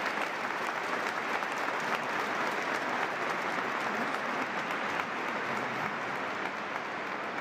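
A large congregation applauding steadily in a cathedral.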